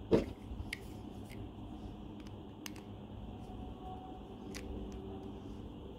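Sharp click from handling a metal-bladed pruner-style grafting tool, then a few faint, scattered ticks of metal on metal and plastic as a small screwdriver works a screw on its blade mount.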